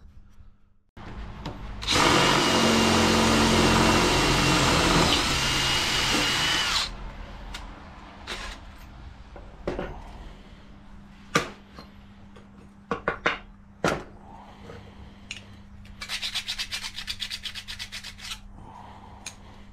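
Cordless drill boring a 6.3 mm hole through a small metal bracket plate, a steady whining run of about five seconds, followed by a few sharp knocks as the piece is handled. Near the end a hand file rasps back and forth over the edge of the plate in quick strokes, deburring the freshly drilled hole.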